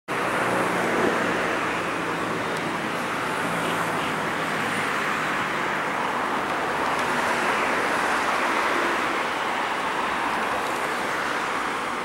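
Steady road traffic noise from cars on a city street, with a low engine hum under it that fades about six seconds in.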